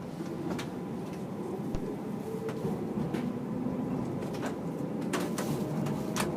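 Cabin running noise of a JR Hokkaido electric limited express train moving off, a steady rumble that builds slowly, with scattered clicks and creaks from the car.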